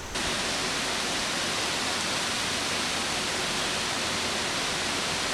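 Waterfall water rushing and splashing in a steady, even hiss that cuts in abruptly just after the start.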